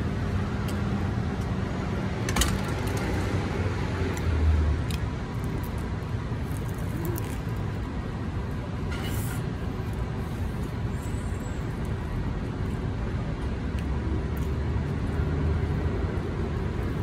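Steady low rumble of road traffic, swelling briefly about four seconds in and again near the end, with a few sharp clicks.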